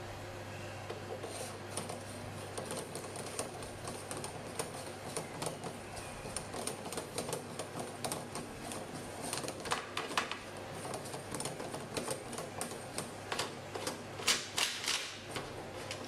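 An aluminium ring with four magnets being turned by hand around the knob of an electronic lock cylinder: a run of quick clicks and rattles, getting denser and louder in the second half. Turning the magnets makes the motor inside generate current and work the mechanism, opening the lock without its key.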